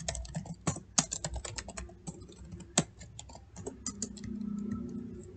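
Computer keyboard keys clicking as a line of code is typed: quick, irregular keystrokes, thinning out with short pauses after about three seconds.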